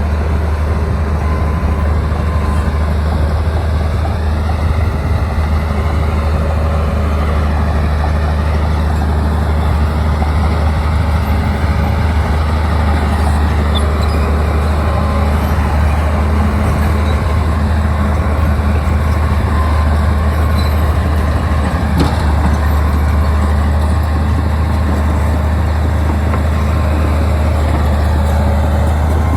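Bulldozer's diesel engine running steadily, a loud, deep, constant drone with no breaks.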